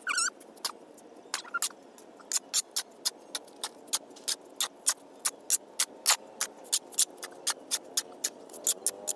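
The metal blade of a long-handled tool scraping and chopping through a pile of dry sand and cement on a concrete floor, as the dry mix is turned over for mortar. Short, sharp scrapes come about three times a second in a steady rhythm.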